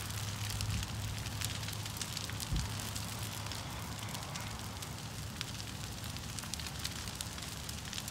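Large brush pile of broken tree limbs burning: a steady rushing noise with frequent sharp crackles and pops of burning wood.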